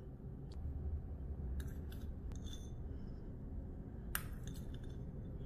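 A few light clinks and taps of a utensil against a dish, scattered, with the sharpest strike about four seconds in.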